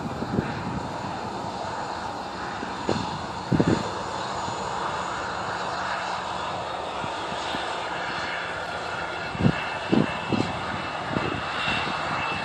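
Jet engines of an Airbus A320 running as it moves along the runway: a steady, even engine noise, with a faint high whine coming in near the end. A few brief low thumps break in around three and a half and ten seconds.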